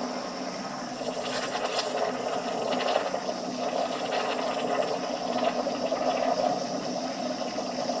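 Milk frother foaming milk for a cappuccino: a steady, slightly wavering rush of noise.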